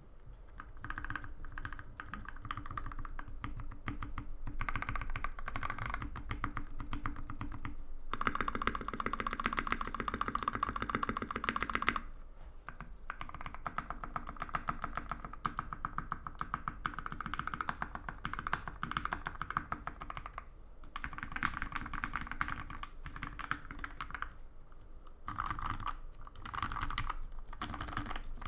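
Typing on a QUAD-H Salamander TKL mechanical keyboard (polycarbonate case, carbon fiber plate, no dampening) with Gateron Giant switches lubed with Krytox 206g0 and GMK keycaps. A steady patter of keystrokes runs throughout, with a faster, louder run about a third of the way in and a few short pauses.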